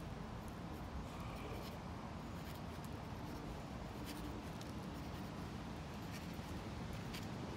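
Faint scratching and scraping as a spoon works a skin texture into wet concrete mix, over a steady low hiss.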